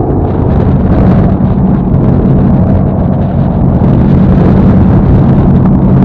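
Boat engine running steadily at a low, even pitch, under rushing wind noise on the microphone.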